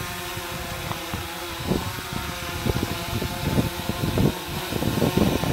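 Quadcopter drone hovering close by: a steady whine of its propellers at several pitches at once, with irregular low thumps of wind on the microphone.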